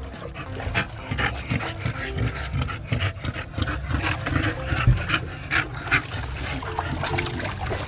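Bully-breed dogs making pig-like grunts and breathing noisily in short, irregular bursts while being scrubbed in a tub of soapy water, with some water splashing.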